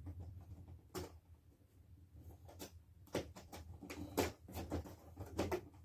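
Scattered light clicks and taps of plastic zip ties being undone and pulled off a boxed prop's packaging, about half a dozen over a few seconds.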